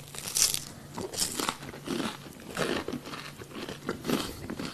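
Someone chewing crunchy food close to the microphone, with irregular crunches about two a second.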